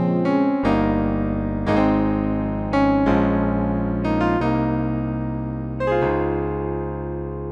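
Electric piano sound from a gospel keyboard sound pack playing sustained chords, five chords struck about a second or so apart, each ringing on and slowly fading.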